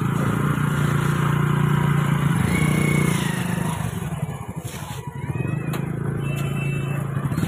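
Motorcycle and scooter engines running in slow, crowded street traffic, a steady low hum that fades for a couple of seconds partway through, with the voices of people walking around them.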